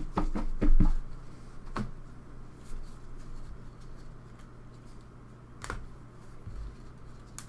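Trading cards and cardboard packaging being handled: scattered clicks, taps and light knocks, the loudest in the first second and a couple of single sharp clicks later, over a faint steady low hum.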